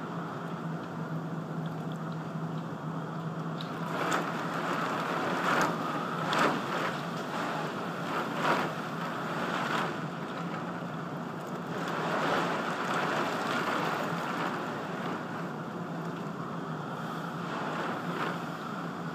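Thunderstorm wind and rain making a steady rushing noise, swelling in gusts with crackling hits on the microphone several times.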